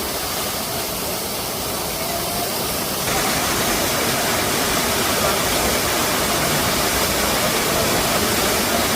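Waterfall rushing, a steady roar of falling water that steps up a little in loudness about three seconds in.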